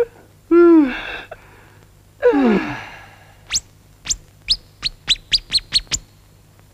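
An animated character's wordless voice sounds twice, short and rising then falling in pitch, followed by a rapid run of about nine sharp, high falling chirps.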